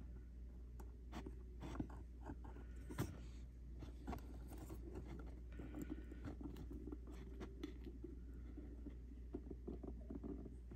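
Faint, scattered small ticks and rustles of fingers handling a resistor's thin wire leads against a tachometer circuit board, over a low steady hum.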